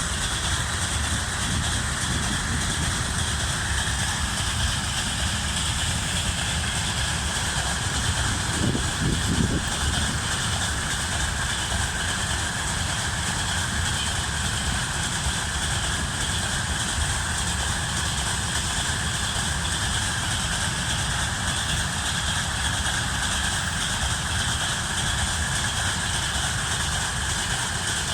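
Freight train rolling past: a steady rumble and rolling noise from the wagons' wheels on the rails.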